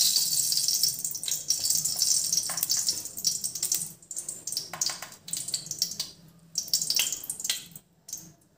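A spoonful of ghee sizzling as it melts in a hot aluminium pan. A steady hiss at first thins into scattered crackles and pops, dying away near the end.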